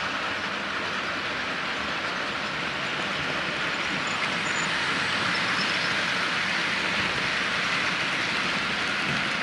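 HO-scale model train running along the track: a steady rolling rattle of small wheels and motor.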